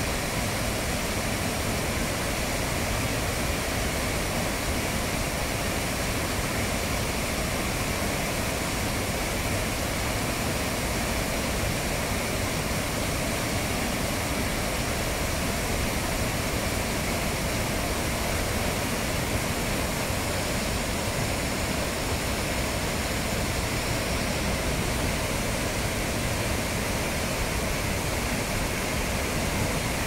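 A large waterfall in high, muddy flow crashing into a churning pool: a steady, unbroken rush of falling water.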